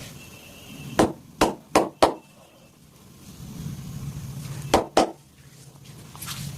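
Sharp hand slaps of a percussive massage: four in quick succession about a second in, then two more close together near the end.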